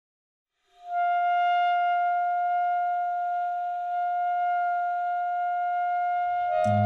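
After a second of silence, a wind instrument holds one long steady note, and near the end the band comes in with low bass notes.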